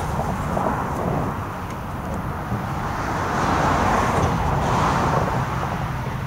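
Approaching diesel freight train: a low steady rumble, with a rushing noise that swells about three seconds in and eases off near the end.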